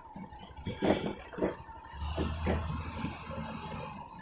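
Motorcycle engine running low and slow, with a few light knocks.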